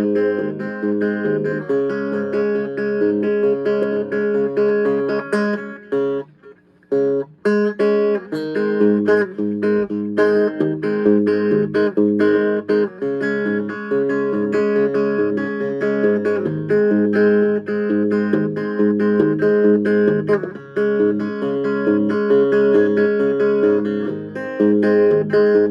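Guitar music: a steady run of plucked notes, dropping out briefly about six seconds in before carrying on.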